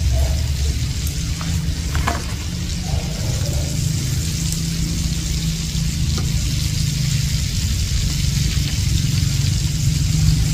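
Flour-coated fish slices and fillets frying in hot fat in a pan, a steady sizzle with a constant low rumble underneath.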